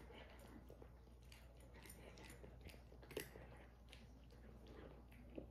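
A cat eating dry kibble from a ceramic bowl: faint, irregular crunching and chewing, with a sharper click about three seconds in and another near the end.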